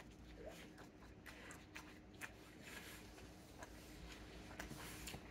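Near silence: faint, scattered small clicks of someone chewing pizza, over a faint steady hum.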